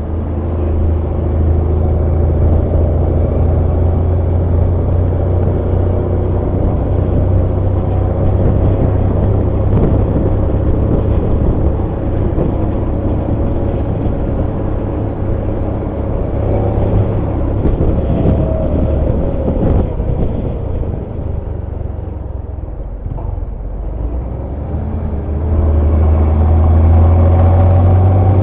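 Diesel engine and exhaust of an ALS intercity bus, running with a deep, snoring drone. The drone eases off about two-thirds of the way through and grows louder again near the end.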